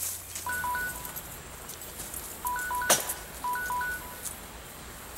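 Electronic timer alarm beeping in quick groups of two-pitch beeps, repeated several times, marking the end of a 13-minute rehydration time for a freeze-dried meal. A single sharp click about three seconds in is the loudest sound.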